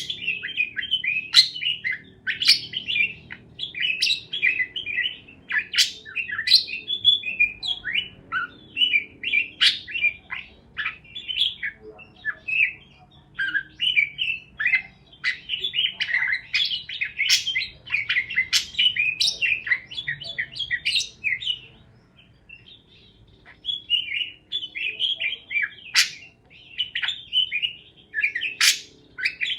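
Parakeets chirping in quick, continuous chatter, many short chirps overlapping, with a brief lull about three-quarters of the way through.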